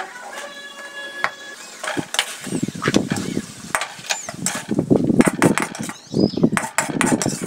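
Wooden spatula scraping and knocking against an aluminium wok as cooked vegetables are pushed into a plastic bowl, in several rough strokes from about two seconds in.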